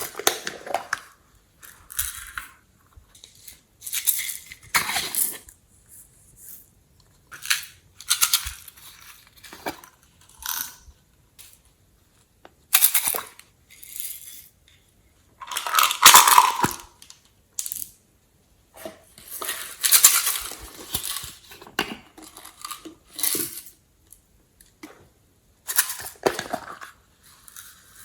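Glossy slime being squeezed, stretched and folded by hand, giving short bursts of wet crackling and squelching every second or two with brief gaps between them.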